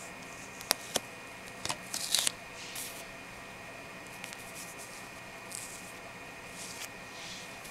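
Long natural fingernails clicking and scratching: a few sharp clicks in the first two and a half seconds, then soft, brief scratching rasps every second or so.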